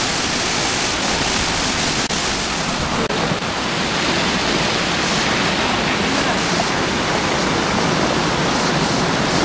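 Rushing water of a forest stream and waterfall: a steady, even hiss, with two brief dips about two and three seconds in.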